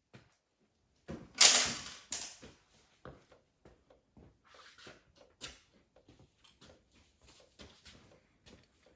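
Metal transmission parts being handled during a TH400 teardown: a loud metallic clatter about a second and a half in, then a string of light clicks and knocks.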